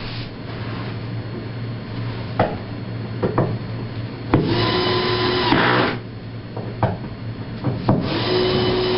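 A small motor whining at a steady pitch in short bursts of about a second and a half, twice, over a steady low hum, with a few light knocks in between.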